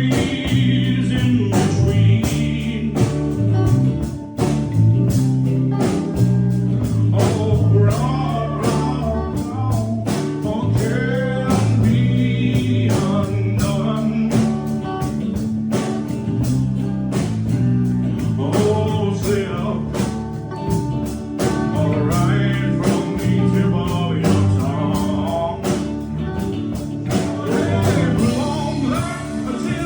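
A live band playing a song at rehearsal: a singer over guitar, a steady bass line and drums.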